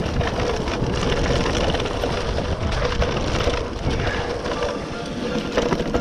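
Mountain e-bike riding downhill on a rough, stony trail: tyres crunching over stones and gravel, with the bike clattering over bumps in many short knocks.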